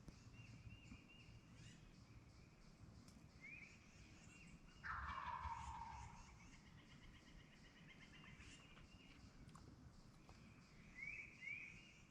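A wild turkey tom gobbling once, about five seconds in, a rattling call that falls in pitch and lasts about a second.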